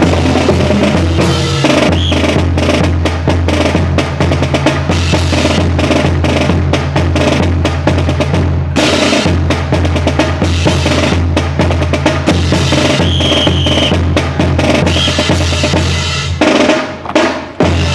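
Marching drum corps playing a fast snare-and-bass-drum cadence with rolls, dropping off briefly near the end.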